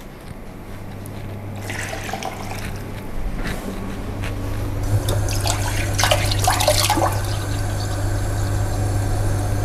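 Water running from a tap into a glass measuring jug, the sound swelling as it fills, with a few clinks of the jug about halfway through, over a steady low hum.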